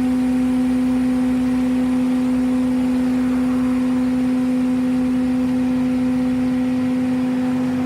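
A loud, steady mechanical drone from a vehicle, holding one constant pitch with fainter overtones above it and no change in speed.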